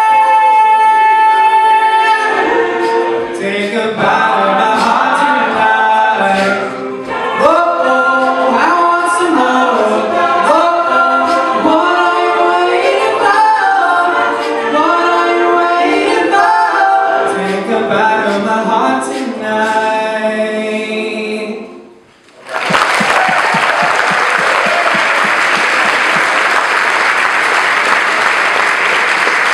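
All-male a cappella group singing a pop song in close harmony, starting on a held chord and then a busy rhythmic section, which stops cleanly about three-quarters of the way through. After a brief gap, the audience breaks into steady applause.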